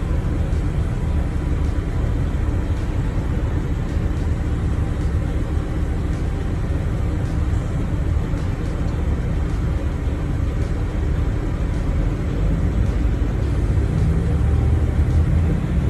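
Steady low rumble of a road vehicle driving along, with engine and road noise and no distinct events.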